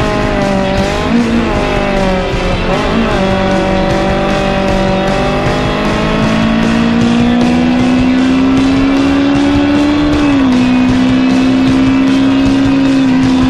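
Motorcycle engine running under way, its pitch holding and then climbing slowly as the revs rise, dropping suddenly about ten seconds in at a gear change, then holding steady again.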